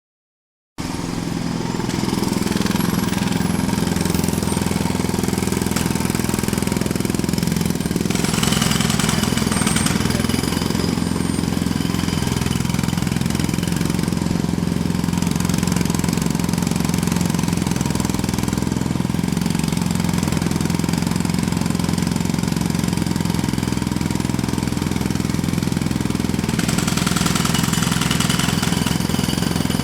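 Jackhammer (pneumatic demolition hammer) hammering continuously, close up, breaking up old road surface; it starts almost at once and runs without a break.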